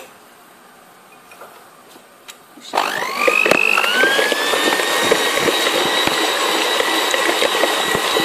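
Electric hand mixer switched on about two and a half seconds in, its motor whine rising as it spins up, then running steadily as its beaters whip egg whites in a plastic bowl.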